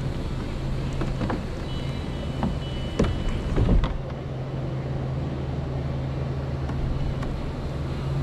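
A steady low motor hum, with a few sharp knocks and clicks between about one and four seconds in.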